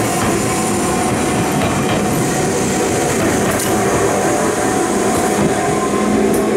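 Enoden electric train passing close by at a level crossing, its wheels running on the rails in a loud, steady noise as the cars go past and draw away.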